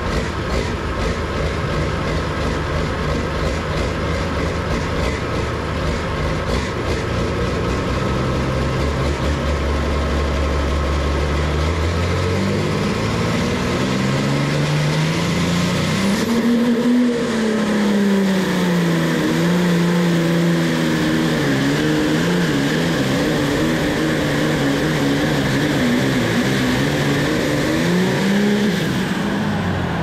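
International Harvester pulling tractor's engine running at a steady speed, then revving up about twelve seconds in, its pitch climbing for several seconds and then swinging up and down under load.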